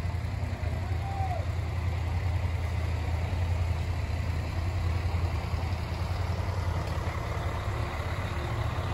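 Engine of a Mercedes-Benz double-decker coach running steadily with a low, even rumble.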